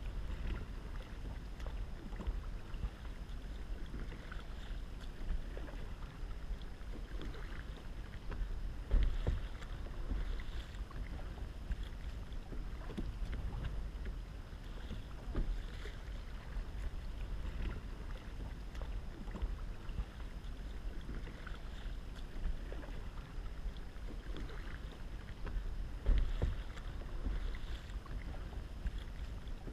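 Kayak paddle strokes splashing in the water, one every second or two, over a steady low rumble of wind on the microphone.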